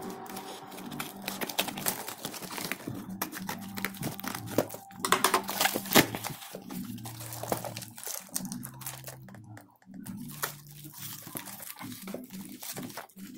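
Plastic wrap and cardboard packaging crinkling and crackling as hands pull cellophane-wrapped boxes out of a torn cardboard parcel, with a sharp crackle about six seconds in.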